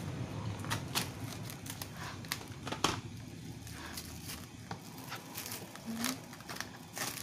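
Plastic cling film crinkling and crackling in irregular snaps as hands press and smooth it over a dish.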